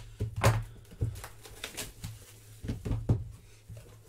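A cardboard trading-card box being handled and set down on a tabletop: a string of short knocks and thumps, about half a dozen over four seconds, over a low steady hum.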